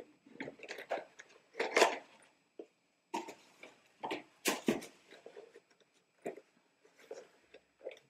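Irregular rustling, crinkling and light knocks from a black heeled shoe being handled and put on, with the loudest crackles about two seconds and four and a half seconds in.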